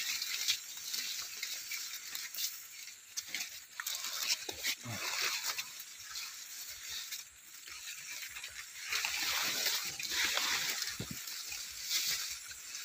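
Dry corn leaves rustling and brushing against the phone as someone pushes through rows of maize on foot, swelling and fading in irregular waves with a few soft knocks.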